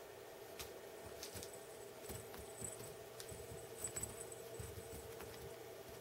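A cat's paws thumping and scuffing on carpet as it pounces and scrambles, in scattered soft knocks and light scratches that come thickest in the middle, over a faint steady hum.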